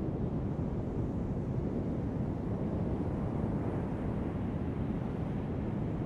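Heavy ocean surf breaking on a sand beach: a steady, deep wash of noise with no single wave standing out.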